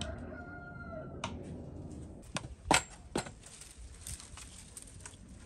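Sharp clicks and knocks of a wire hook on a slotted metal rail as a wooden bird feeder is hung up, the loudest about two and three-quarter seconds in. Before them comes about a second of a drawn-out pitched call.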